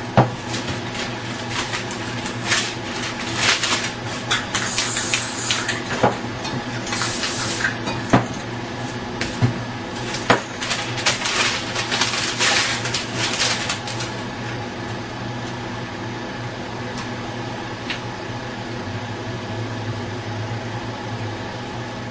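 Aerosol spray-paint cans hissing in short bursts, mixed with sharp clicks and knocks of cans and paper being handled, over a steady background hum. About two-thirds of the way through the hissing and knocking stop, leaving the steady hum with only the odd faint tick.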